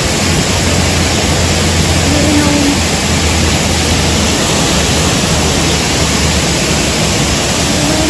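Steady, loud rush of water from a man-made waterfall, an even hiss with no let-up.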